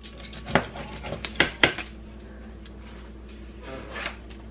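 A blade cutting naan pizzas on a foil-lined metal sheet pan, with a few sharp clacks of the blade against the pan in the first two seconds. Near the end, a lighter clink as a slice is lifted with a spatula onto a plate.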